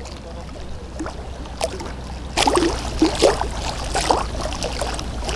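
Small waves lapping and splashing against the bank at the water's edge, over a steady low wind rumble on the microphone; the splashing grows busier and louder about two and a half seconds in.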